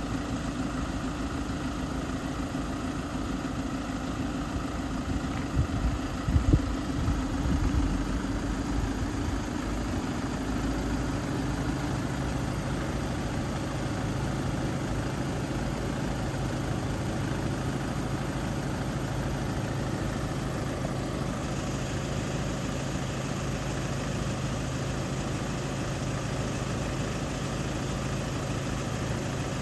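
A vehicle engine idling steadily, with a few knocks about six to eight seconds in. About eleven seconds in, the hum settles to a lower pitch.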